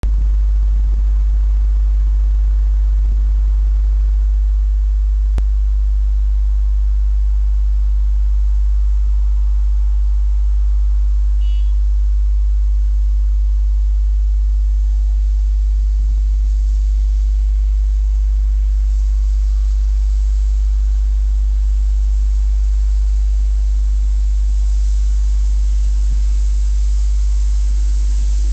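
A loud, steady low hum runs throughout. Over the last few seconds a rising hiss builds as the steam locomotive 60163 Tornado draws near.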